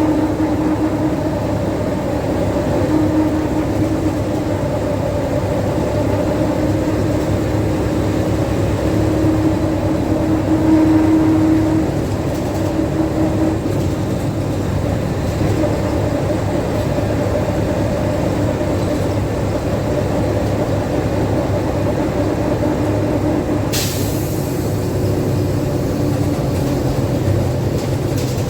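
Ikarus IK 161 bus with its MAN D2866 diesel engine running, the drone rising and falling in pitch and loudness as the load changes. About 24 seconds in, a sudden burst of compressed-air hiss that dies away over a few seconds.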